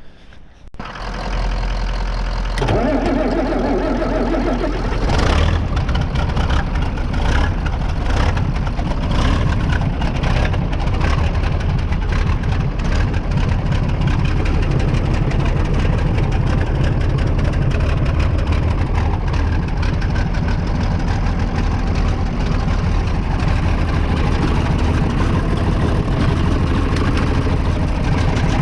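John Deere 4020 tractor engine started cold on a jump and a shot of starting fluid: the starter cranks for a couple of seconds, the engine catches about five seconds in, and then it runs steadily.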